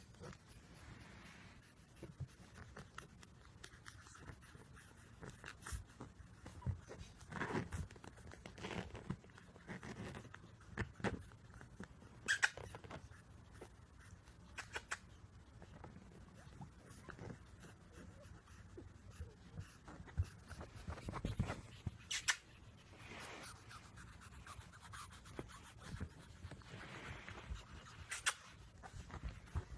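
Three-week-old pug puppies moving about, with scattered faint scratching and clicking and a few brief squeaks.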